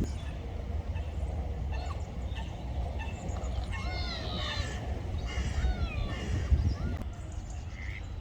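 Birds giving several short, high, curving calls, thickest between about three and seven seconds in, over a steady low rumble.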